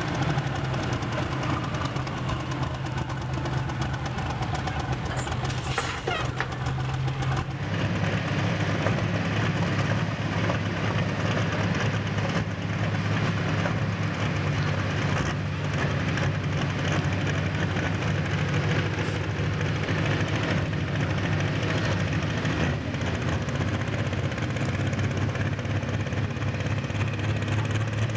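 Pulling-tractor engine running as a blue Ford pulling tractor moves slowly. About seven seconds in it gives way to another pulling tractor's engine idling steadily while it sits in front of the sled.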